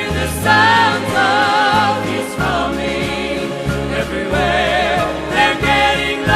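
Gospel music: voices hold long notes with vibrato over a band accompaniment with sustained bass notes.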